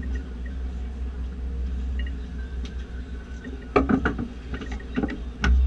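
Steady low rumble of the charter boat's engine running. A few sharp knocks and clatters come about four seconds in and again near the end.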